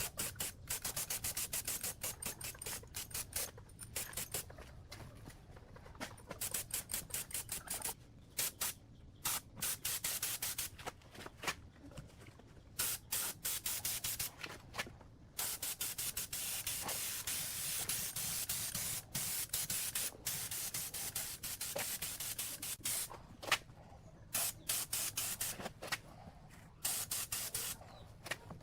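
Compressed-air spray nozzle hissing in many short trigger bursts in quick succession, then one long continuous spray from about halfway through for several seconds, then short bursts again near the end.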